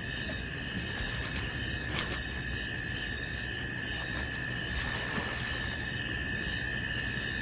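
Steady chirring of night insects, a constant high drone with a low rumble beneath it.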